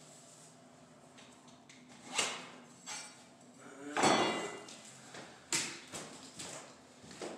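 Scattered knocks and clatters of laminate flooring planks and hand tools being handled and set down on the floor. The loudest is a longer clatter with a brief ringing about four seconds in, followed by a few more knocks.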